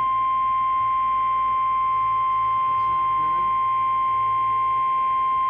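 NOAA Weather Radio's 1050 Hz warning alarm tone: one steady, unbroken high beep at constant loudness. It is the alert signal that precedes a broadcast warning, here a tornado warning.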